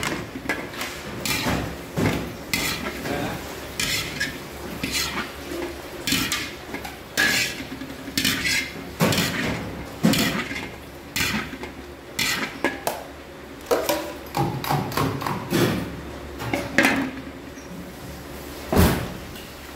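Stainless steel ladle scraping and clanking against a large steel pan as rice and broth are pushed around, in irregular strokes about once a second, with a sharper clank near the end.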